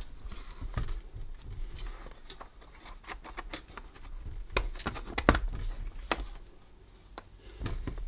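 Hands handling a partly dismantled Lenovo G50-30 laptop's plastic case and screen lid: scattered light clicks, taps and scrapes of plastic.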